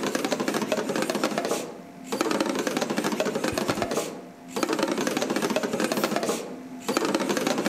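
Many motor-driven wooden drumsticks rapidly striking the wooden, cajón-like membranes of a wall of modular drum units, a dense roll of overlapping hits. It comes in bursts about two seconds long with brief lulls between them.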